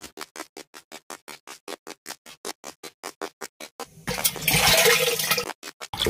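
Rapid, even clicking at about seven clicks a second, with a short rush of splashing, pouring water about four seconds in.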